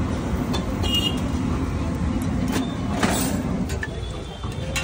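Steel spatula clicking and scraping a few times on a flat iron griddle (tawa) as a flatbread is pressed, over a low steady rumble that drops away just before the end.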